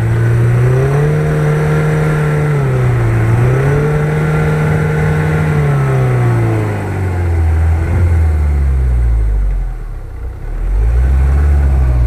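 Ford Ranger pickup's engine pulling it through deep snow, revving up and easing off in turn. The note rises about a second in, dips briefly, rises again, then falls away low for a few seconds before picking up once more near the end as the truck comes close.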